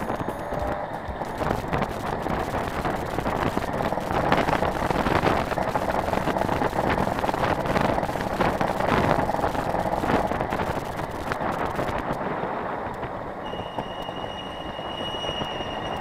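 Vespino moped's small two-stroke engine running as it rides along, with wind rushing over the microphone. A thin steady high whistle comes in near the end.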